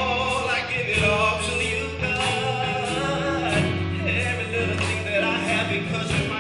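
Live gospel music: a male lead singer and backing singers over band accompaniment with sustained low notes and a steady beat.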